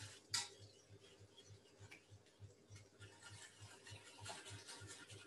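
Near silence with faint kitchen handling: a light click about half a second in, then soft scattered clinks and scrapes of a spoon stirring in a steel pot.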